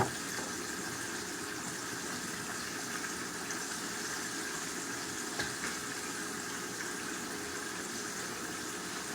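Food cooking on the stove with a steady bubbling hiss. A sharp knock comes at the start, and a lighter one about five and a half seconds in.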